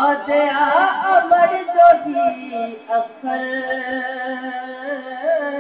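A man's voice singing a devotional recitation in a melodic style, gliding between notes at first and then holding long, steady notes in the second half.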